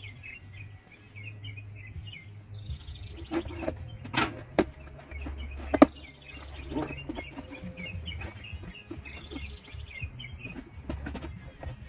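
Songbirds chirping repeatedly in quick short notes, with a few sharp knocks and rustles from handling, the loudest about six seconds in, over a low steady rumble.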